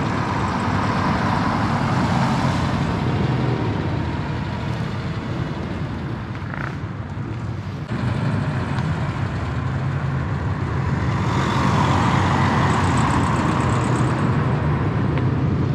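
Motor vehicle engine running nearby under a steady haze of traffic noise, which swells louder twice: near the start and about three-quarters of the way through.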